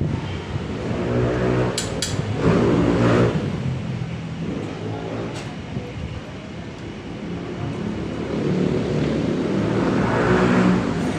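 Large diesel engine running, growing louder twice, with a couple of sharp clicks in between.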